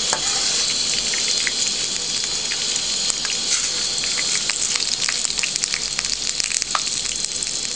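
Cumin seeds sizzling in hot oil in a wok as they fry until they brown: a steady hiss with sharp crackles and pops that come more often after about three seconds.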